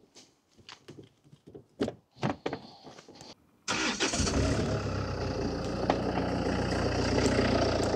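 A few faint knocks as the driver's door is opened, then a little under four seconds in the Range Rover Evoque's engine fires at once with no long cranking and settles into a steady idle. The start is drawn from an ANCEL BS200 capacitor engine starter wired onto the car's battery.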